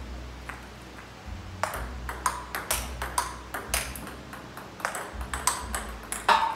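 Table tennis rally: the ball clicks sharply off the paddles and the table in quick alternation, starting about one and a half seconds in, with the loudest hit near the end. A low steady hum runs underneath.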